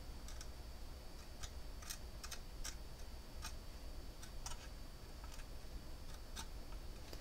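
A dozen or so light, irregular clicks and taps of a thin metal spatula against a plastic front panel as bicarbonate powder is pressed into a blob of superglue, over a faint low hum.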